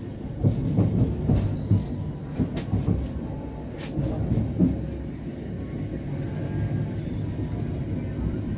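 Passenger train running out of a station, its wheels rumbling and clattering over the rail joints and points of a crossover. Uneven knocks and a few sharp clicks come in the first half, then the sound settles into a steadier rumble.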